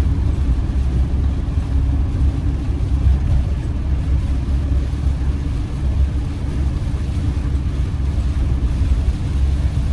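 Steady low rumble of a campervan's engine and road noise, heard from inside the cab while driving.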